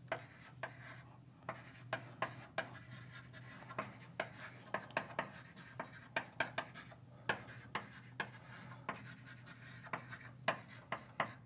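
Writing on a lecture board: irregular scratchy strokes and sharp taps, several a second, over a faint steady low hum.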